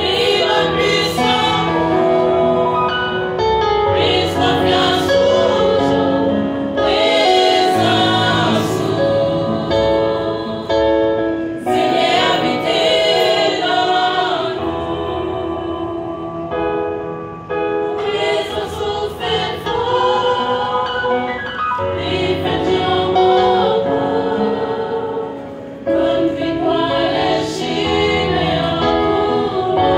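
Women's choir singing a hymn together in harmony, in long sustained phrases with short breaks between them.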